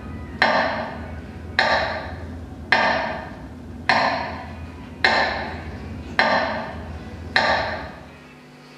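Metronome ticking to mark a minute of silence: seven sharp, ringing ticks a little slower than one a second, each fading away before the next. The ticks stop near the end.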